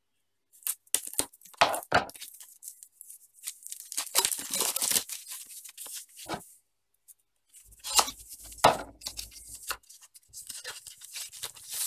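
A knife slitting the seal on a small cardboard box, then the seal tearing and the cardboard being pried open and handled, with a few sharp clicks and scrapes and a longer rasping tear.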